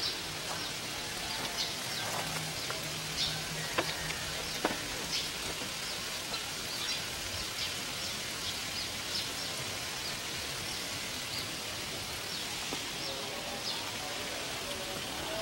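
Water spraying from a black irrigation pipe outlet onto grass and soil, a steady splashing hiss like light rain.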